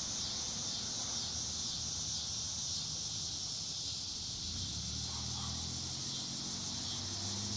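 Insects chorusing in a steady high-pitched drone, with a low hum coming in about halfway through.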